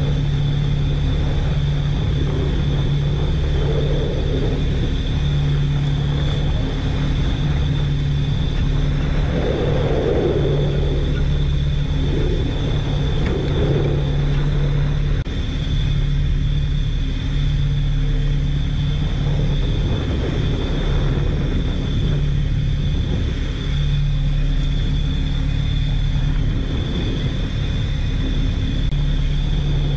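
Fishing boat's engine and longline hauler running steadily while the line is hauled in over the rail roller. There is a low rumble, a low hum that drops out briefly a few times, and a steady high whine.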